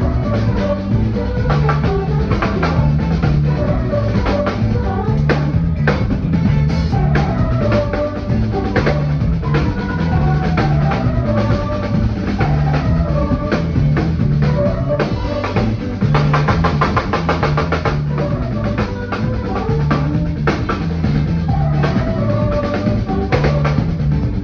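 Live drum kit soloing, with fast, busy strikes on snare, bass drum and cymbals over a sustained keyboard and bass backing. About two-thirds of the way through comes a rapid, even roll lasting a couple of seconds.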